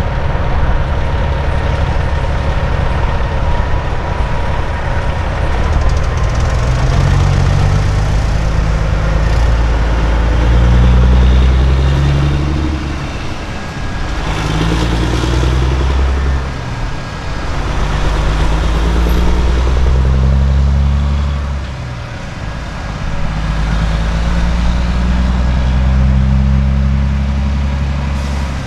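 Peterbilt semi truck's diesel engine pulling away under a heavy oversize load, its note climbing through each gear and dropping back at every upshift, several shifts in a row. Partway through, a passing vehicle towing a travel trailer adds a brief rush of road noise.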